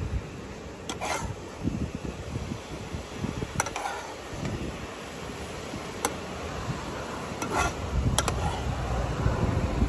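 Metal spoon clinking and scraping against a metal cooking pot while sauce and pork ribs are spooned out, with about five sharp clinks spread through, over a low rumble.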